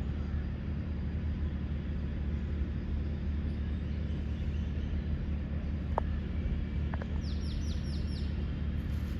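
A small bird gives a quick run of five high chirps, each falling in pitch, about seven seconds in, over a steady low rumble. A sharp click sounds about six seconds in.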